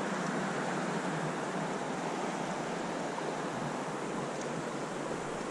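Steady rushing noise of a flowing creek, with wind.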